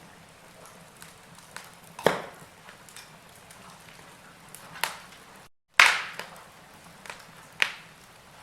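Wood fire crackling: burning logs give sharp, irregular pops and small ticks over a faint steady hiss. The sound drops out for a moment about five and a half seconds in, and one of the loudest pops comes right after.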